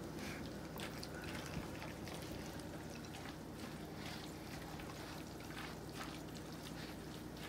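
Faint wet squelching and scraping of a plastic spatula stirring a thick cheese and egg mixture in a glass bowl, in irregular soft strokes, over a steady low hum.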